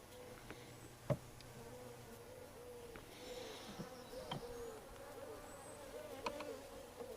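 Honeybees buzzing around an open top bar hive, the pitch rising and falling as individual bees fly close past. A few sharp clicks, the loudest about a second in.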